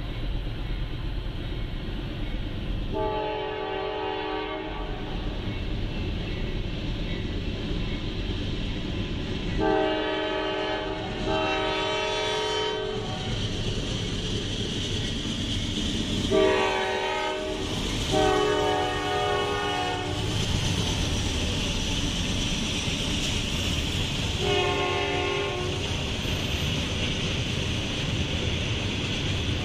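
Freight locomotive's multi-chime air horn sounding about six blasts, each one to two seconds long and a few seconds apart, for a road crossing, over the rumble of the approaching train. From about halfway through, the steady hiss and rumble of steel-coil flatcars' wheels on the rails grows as the train rolls past.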